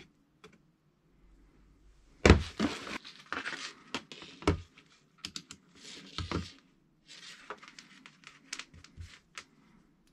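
Handling noises: a run of knocks and clicks mixed with short rustling and scraping. The loudest knock comes a bit over two seconds in.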